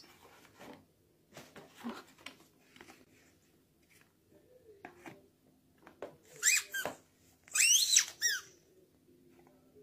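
Rubber squeaky dog ball squeezed by hand, giving two loud clusters of high, gliding squeaks about a second apart. Before them there is softer rustling and handling of toys.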